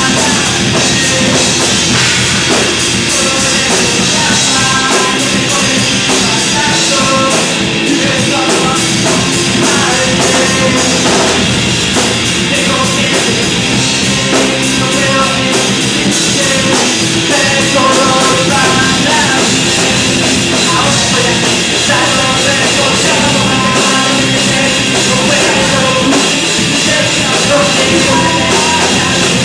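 Live rock band playing loud and steadily: electric guitar, acoustic-electric guitar and drum kit.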